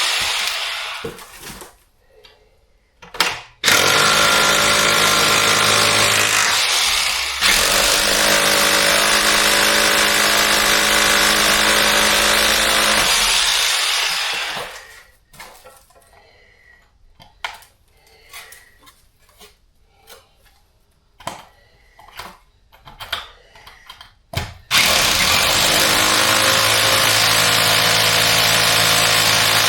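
An electric power tool runs under load in long stretches with a steady motor hum. It stops for about ten seconds, during which there are scattered knocks and clicks, and starts again about 25 seconds in.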